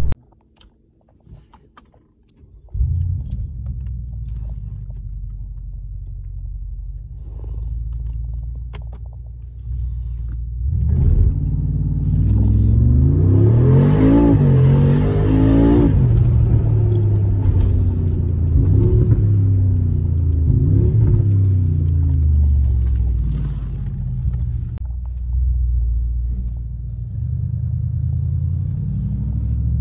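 Brabus G800's V8 with its Brabus exhaust, heard from inside the cabin: a low rumble that swells into hard acceleration from about ten seconds in. The engine pitch rises and drops several times as it shifts up, loudest in the middle, before settling back to a rumble near the end.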